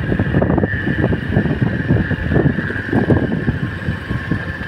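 Motorcycle engine running while riding, with wind buffeting the microphone and a steady high whine.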